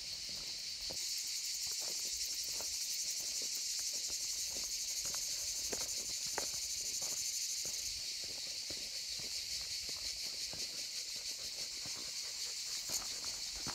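A steady, high-pitched insect chorus, louder between about one and eight seconds in, over irregular footsteps scuffing and crunching on a rocky dirt trail.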